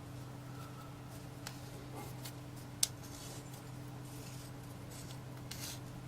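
Faint handling sounds, small ticks and rustles of a manual impact driver set and its parts being picked up, with one sharp click about three seconds in, over a steady low hum.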